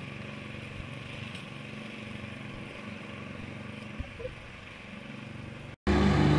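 Petrol walk-behind lawn mower engine running steadily while cutting grass. Near the end it gives way to a much louder ride-on lawn tractor mower engine running.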